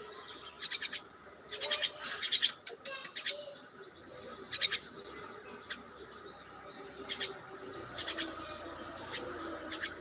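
Common myna calling in short chattering bursts, each a quick run of harsh notes. Several come close together in the first few seconds, then single bursts follow every second or so.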